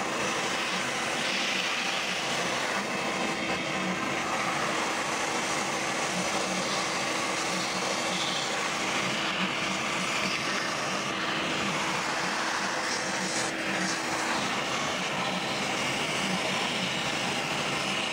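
CNC router running steadily, its 1/4-inch bit milling a pocket in closed-cell insulation foam. A low hum under the cutting noise drops out about three-quarters of the way through.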